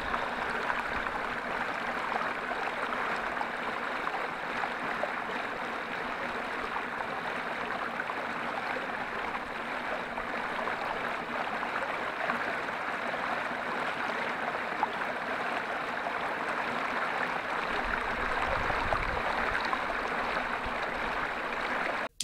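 Small shallow stream flowing over stones, a steady, even babble of water, with a low rumble for a couple of seconds near the end.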